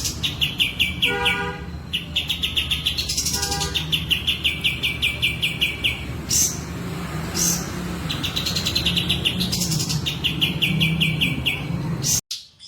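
Kapas tembak songbird singing continuously, in repeated bursts of a fast, high rattling trill lasting about a second each, with a few lower whistled notes in between. The song cuts off abruptly near the end.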